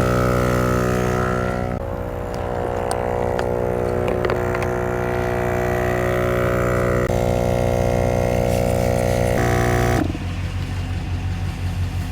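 A motor running steadily with a buzzing hum, changing pitch abruptly several times. After about ten seconds it becomes a rougher, pulsing low drone.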